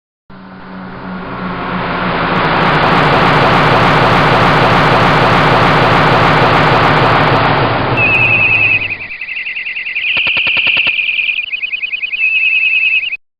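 A motor vehicle's engine running, building up over the first couple of seconds and stopping about nine seconds in. A high, rapidly pulsing chirp starts about eight seconds in and keeps repeating until the sound cuts off near the end.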